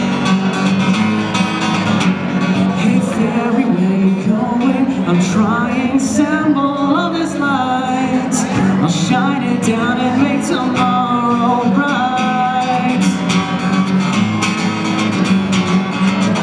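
A man singing live over a strummed acoustic guitar. The guitar plays throughout, and the voice comes in about four seconds in and drops out a few seconds before the end.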